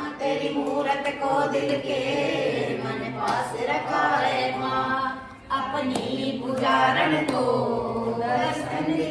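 A family group of women and men singing a Navratri bhajan together, with a short break between lines about five seconds in.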